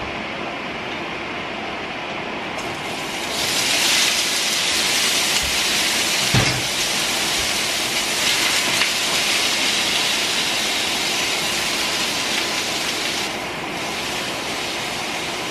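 Asparagus tipped into hot oil in a wok, sizzling loudly from about three seconds in and holding steady, with one knock of the pan or utensil about six seconds in. Under it is the steady hum of the over-the-range vent fan.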